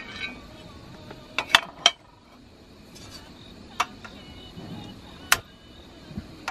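Round grill pan set down on a portable butane camping stove: a cluster of sharp metal clanks about a second and a half in, then single clicks near four and five seconds in, the last as the burner is lit. Crickets chirp steadily throughout.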